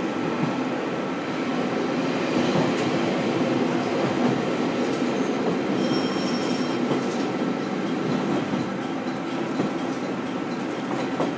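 Interior running sound of a JR West KiHa 40 diesel railcar, heard from the seat above the engine: a steady diesel engine drone mixed with rail noise, with a brief high-pitched squeal about six seconds in.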